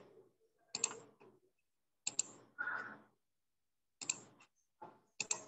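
Computer keyboard and mouse clicks, in short sharp groups roughly once a second, with dead quiet between them.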